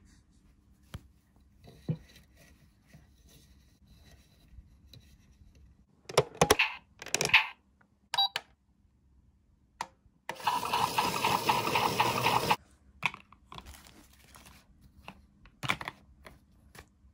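A toy washing machine being handled and loaded with doll clothes: scattered plastic clicks and cloth rustling, with a denser, steady sound lasting about two seconds roughly ten seconds in.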